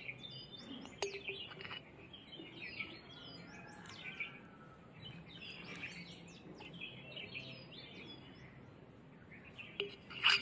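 Small birds chirping repeatedly with short high chirps. Now and then a light click of a spoon against a glass jar or steel bowl, the sharpest near the end.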